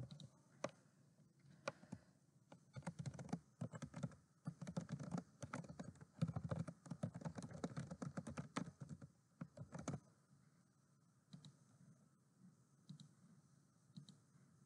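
Typing on a computer keyboard: a quick, continuous run of key clicks lasting about seven seconds, with a few separate clicks before and after it.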